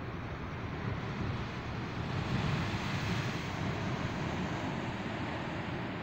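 Sea surf washing over and breaking against shore rocks: a steady rush of water that swells a little louder about two seconds in.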